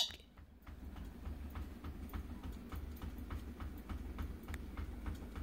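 Faint, steady ticking, about four ticks a second, over a low hum.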